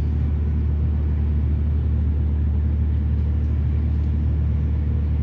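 Steady low drone of a moored ship's running machinery, even and unchanging.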